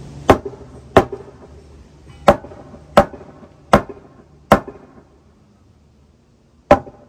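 Hammer blows on a new wooden rim joist board, driving it sideways into its slot in the wall framing: six sharp strikes about one every 0.7 s, a pause of about two seconds, then one more strike near the end. The board is not seating well yet and bounces back under the blows.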